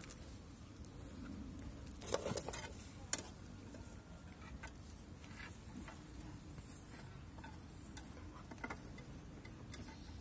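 Two puppies moving and scuffling on a wooden bench: faint rustling with a cluster of light clicks and clatters about two seconds in, a sharp click a second later and another light one near the end, over a low steady background.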